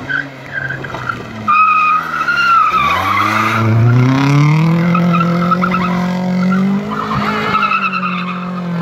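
Rally car engine dropping in pitch as the car brakes for a corner, then rising steadily as it accelerates hard away, with tyre squeal.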